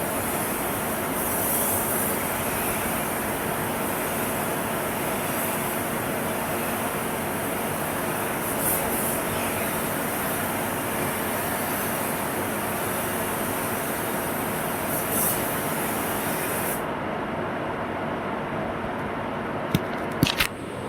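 Steady rushing noise of workshop air or machinery, with a few brief bursts of sharper high hiss. The high hiss cuts off a few seconds before the end, and a few sharp clicks follow.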